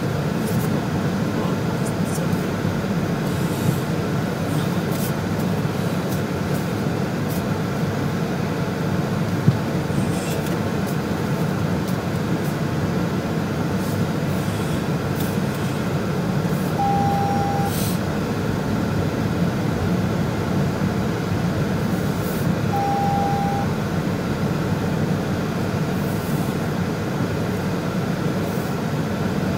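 Car running, heard from inside the cabin: a steady low engine and road rumble, with two short single electronic beeps from the car a few seconds apart in the second half.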